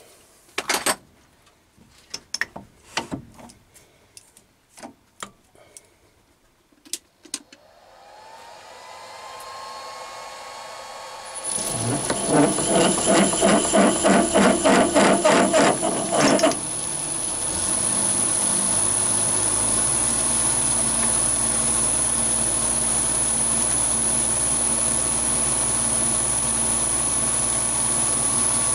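Chinese mini lathe drilling 316 stainless steel with a 3/4 inch HSS twist drill. After a few clicks and knocks, the spindle motor spins up with a rising hum about eight seconds in. As the drill bites, there is a loud rhythmic chatter for about five seconds, then it settles into steady cutting with a high steady whine.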